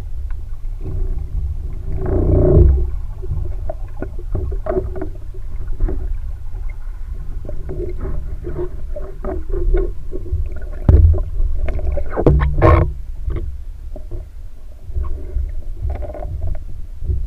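Muffled underwater sound from a submerged camera: a continuous low rumble of moving water with scattered clicks and knocks, louder about two and a half seconds in and again around twelve seconds.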